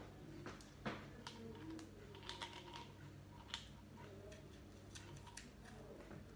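Faint, scattered light clicks and taps of hands and a small kitchen knife working at food and plates, with sharper taps about a second in and again around three and a half seconds.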